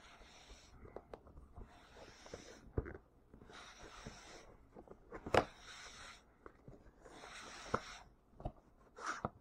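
A cardboard game box and its contents being handled and opened: stretches of rustling and scraping of cardboard and paper, with a few light knocks, the sharpest about five seconds in.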